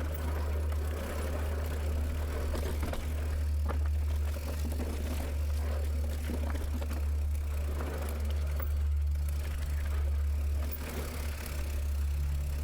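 Mountain bike riding over a dirt trail: a steady low rumble with scattered rattles and clicks from the bike.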